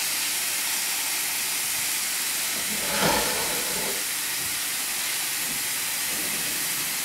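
Rabbit browning in a frying pan: a steady sizzle, with one brief knock about three seconds in.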